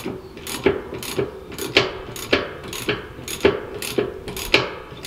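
Hand ratchet wrench clicking in a steady rhythm, about two strokes a second, as it snugs the equalizer and shackle bolts on a trailer's leaf-spring suspension, short of full torque.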